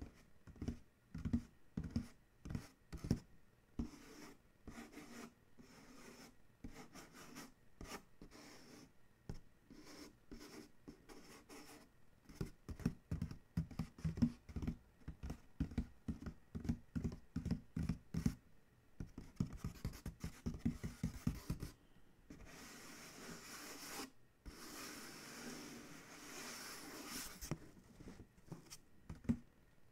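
Fingertips tapping and fingernails scratching on a cardboard shipping box. The taps come quickly and irregularly, with a burst of very fast tapping about two-thirds of the way through, and give way to longer stretches of steady scratching near the end.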